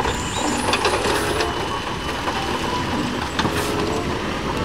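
Rocks and earth sliding out of a dump truck's raised tipper bed, a continuous rumbling clatter of stones tumbling onto a rubble pile.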